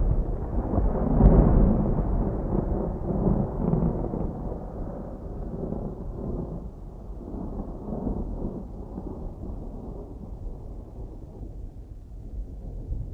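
Distant thunder rolling: a rumble swells at the start, peaks with a crack about a second in, then rolls on and slowly dies away, with a smaller swell about eight seconds in.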